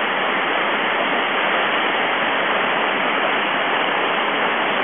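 Steady rush of churning whitewater from a river rapid in high flow, about 1400 cfs.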